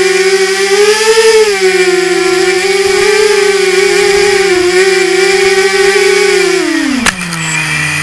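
RMRC Mudskipper 250 FPV quadcopter's brushless motors spinning with a steady high whine that wavers a little in pitch. About seven seconds in there is a click, and the motors wind down, the whine falling in pitch as they slow.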